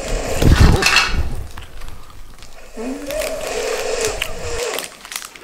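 A sleeping man snoring heavily.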